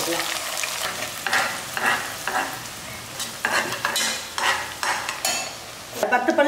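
Sliced shallots frying in hot oil in a nonstick pot, sizzling steadily, while a steel slotted spoon stirs and scrapes through them in a series of short strokes.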